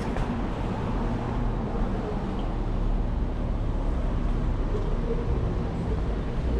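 Road traffic on a busy city street: passing vehicles make a steady low rumble.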